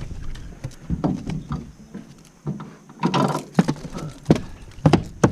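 Irregular knocks, thumps and short scraping sounds on a small fishing boat, with the loudest clatter about three seconds in and several sharp knocks near the end.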